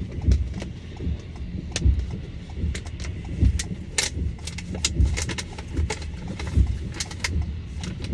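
Car cabin while driving in the rain: windshield wipers sweep with a regular thump about every one and a half seconds, raindrops tick sharply and irregularly on the glass and roof, and road noise runs beneath.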